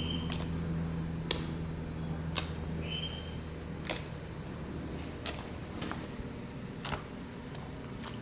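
Clear slime being pressed and worked with the fingers, giving about eight sharp clicking pops from trapped air, at irregular intervals of roughly a second.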